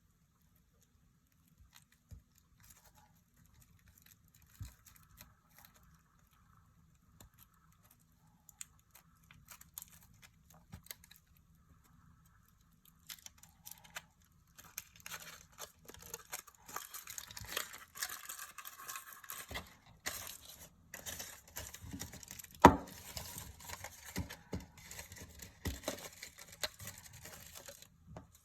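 Foil wrapper of a chocolate surprise egg being crinkled and torn open by hand. Faint scattered handling clicks come first, then steady crinkling from about halfway through, with one sharp crack a little later.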